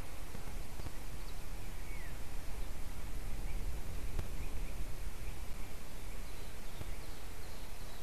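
Wind rumbling on an outdoor nest-camera microphone, with a few faint, short bird calls high above it, one falling in pitch about two seconds in.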